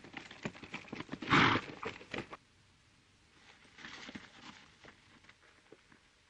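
Horses' hooves and men's running footsteps scuffing on dry dirt, a quick run of knocks and thuds with one loud short rush of noise about a second and a half in. After that the steps fade to a few fainter scuffs.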